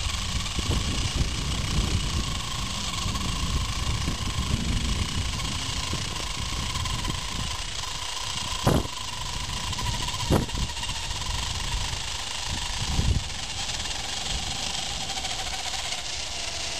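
Zip-line trolley pulleys running along the steel cable with a steady whine that sinks in pitch near the end, over heavy wind rumble on the microphone. A few sharp knocks in the second half.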